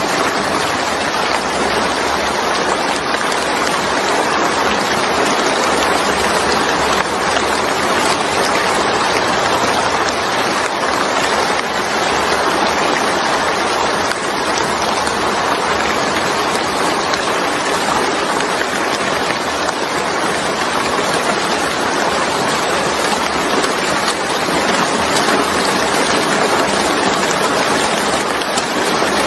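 Steady rain pouring onto a wet surface: a dense, even hiss of countless drops with no pauses.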